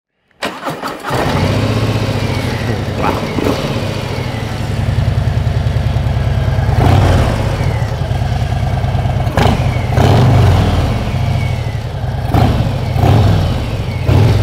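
Harley-Davidson Low Rider S's Milwaukee-Eight 117 V-twin, breathing through a Dr Jekill & Mr Hyde electronically valved exhaust, fires up about half a second in and settles into a steady idle. The throttle is blipped several times, each blip a short rise in pitch.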